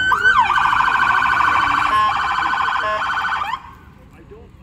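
An emergency vehicle's siren: a held tone gives way to a fast warble for about three seconds, then cuts off suddenly.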